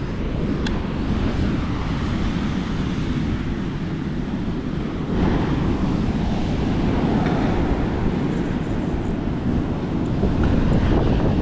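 Wind buffeting the microphone in a steady low rumble, with waves washing on the shore behind it.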